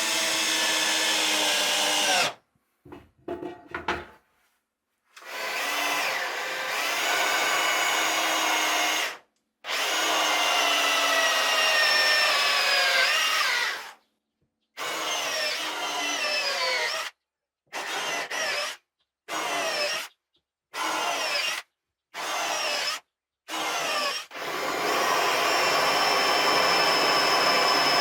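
Electric drill-type power tool running with a motor whine whose pitch slides as the speed changes. It stops and restarts several times, in short trigger bursts through the middle of the stretch, then runs steadily near the end.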